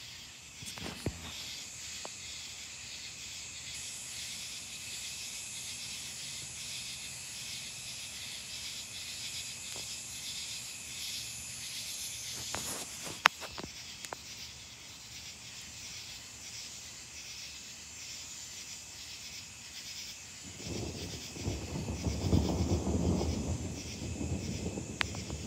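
Steady chorus of night insects, a high pulsing chirring. About three-quarters of the way through a long, low rumble of distant thunder builds, peaks and starts to fade, and there is one sharp click about halfway.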